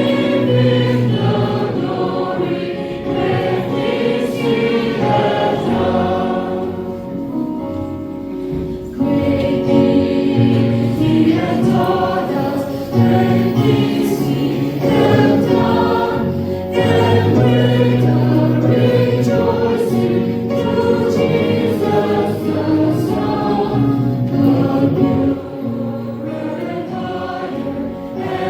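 Choir singing a hymn, many voices in harmony over a steady bass line.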